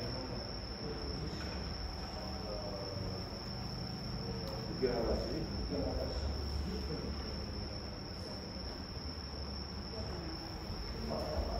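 Quiet hall room tone: a steady high-pitched tone over a low hum, with faint voices murmuring about five seconds in.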